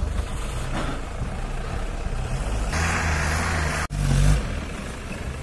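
Mahindra MM540 4x4 jeep engine labouring under load as the jeep works through deep sand, with a louder rushing hiss for about a second past the middle. The sound breaks off abruptly about four seconds in and resumes with a louder engine rumble.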